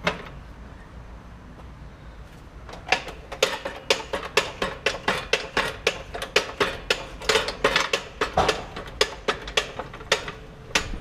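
Hydraulic floor jack being pumped, a quick run of metallic clicks and clanks, about three or four a second, starting about three seconds in as the saddle rises.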